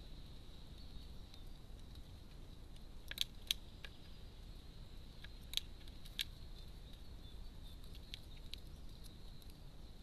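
Carrion crow's beak tapping and clicking against a feeder dish as it pecks at seed: a handful of sharp, short taps in small clusters, a few seconds in and again later.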